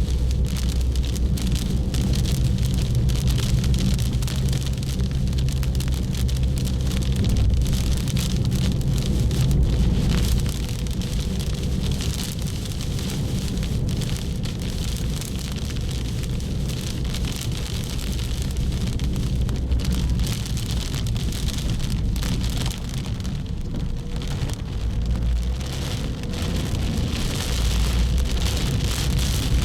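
Heavy rain pattering hard on a car's body, many fine drop hits over the car's low, steady rumble.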